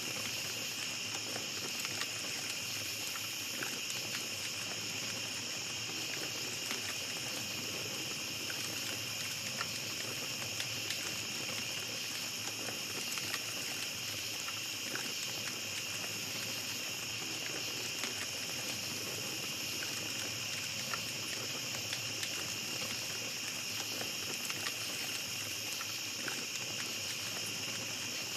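Small campfire crackling with scattered faint pops, over a steady high-pitched chorus of night insects.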